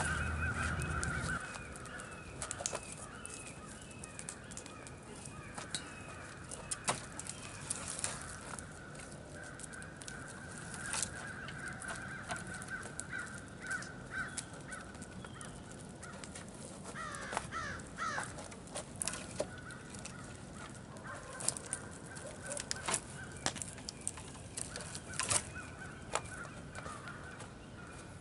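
Scattered sharp wooden knocks and clatter as logs and poles are handled and set on a log wall, over a steady background of birds calling.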